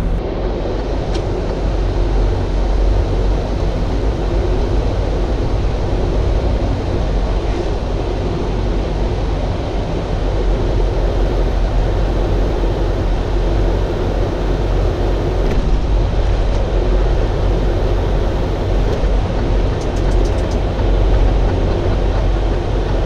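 Semi-truck cab interior noise as a Freightliner Cascadia drives slowly: the diesel engine running steadily with a low hum, plus road and cab noise. A few light ticks about 20 seconds in.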